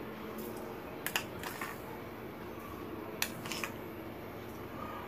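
A handful of faint, short clicks and light taps spread over a few seconds, over a steady low hum of room tone.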